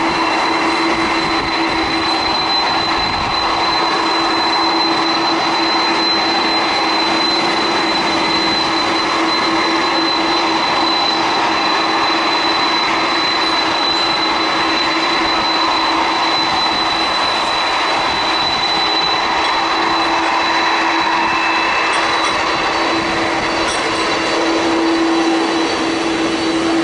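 Boeing 747's four jet engines running at taxi power: a steady, loud noise with a low hum and a high whine, each held on one pitch.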